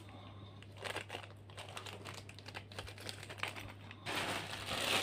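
Plastic packaging crinkling as items are handled: light, scattered rustles at first, then loud continuous crinkling from about four seconds in.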